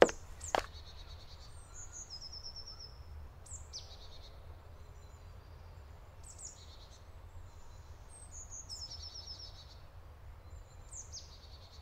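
Songbirds singing in woodland: short high phrases, each a quick downward sweep often ending in a rapid trill, recurring every two or three seconds over a faint low background hum. A single short knock comes in the first second.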